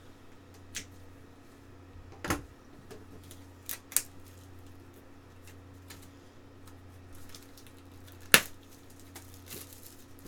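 Plastic shrink-wrap being picked at and peeled off a product box: scattered sharp clicks and crackles, the loudest about eight seconds in, over a steady low hum.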